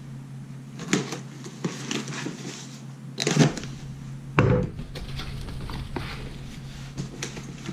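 Cardboard shipping box being cut open and unpacked by hand: scraping, rustling and clicking cardboard, with a knock about four and a half seconds in, over a steady low hum.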